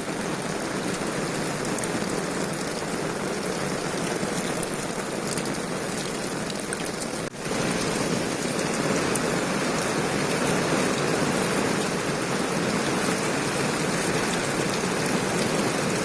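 Heavy rain pouring down steadily, with runoff water running, a constant hiss. It breaks off for an instant about seven seconds in and comes back a little louder.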